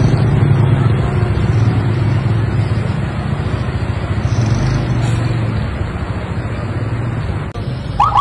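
A tour bus engine running loud and steady as a bus in the convoy passes close by. Right at the end, a quick burst of high musical notes from a telolet horn starts.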